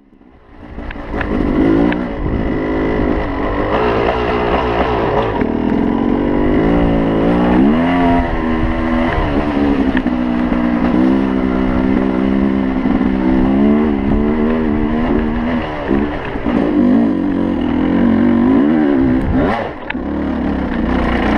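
Yamaha YZ250 two-stroke dirt bike engine being ridden hard, its pitch rising and falling over and over with the throttle and gear changes, with a brief drop near the end before it revs up again.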